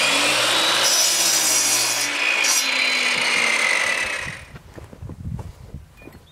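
Electric miter saw running and cutting through a short piece of wood; its motor hum shifts in pitch under the cut, and the noise drops away about four seconds in.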